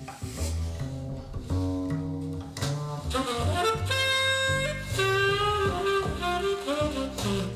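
Jazz played back through Piega Premium 501 Wireless Gen 2 loudspeakers and recorded in the room: separate plucked bass notes underneath, with a held, sliding horn melody coming in about three seconds in.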